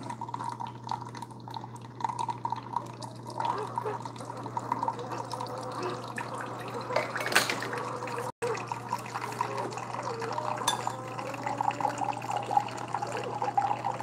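Three Keurig K-Supreme single-serve coffee makers brewing at once: coffee streaming and trickling into glass mugs over a steady low hum.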